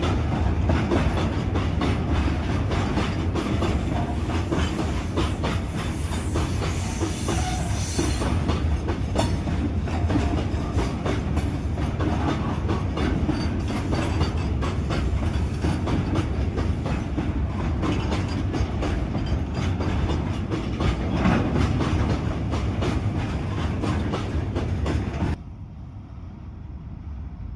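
Indian Railways train passing close by, its wheels clattering over the rail joints in a fast, continuous clickety-clack with rumble. The sound cuts off suddenly near the end, leaving a much quieter low rumble.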